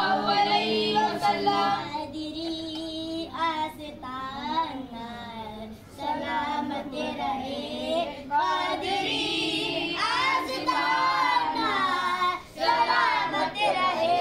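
Children's voices singing a devotional naat in Urdu, in long bending melodic lines with brief pauses between phrases.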